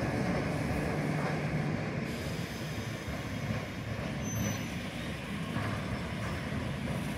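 Toyama Chiho Railway DeKi 12021 electric locomotive running away along the track, its low rumble and wheel noise fading as it recedes.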